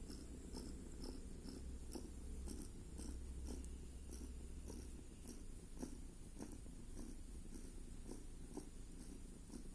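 Cat snoring in its sleep: faint, short rasping pulses repeating about three times a second.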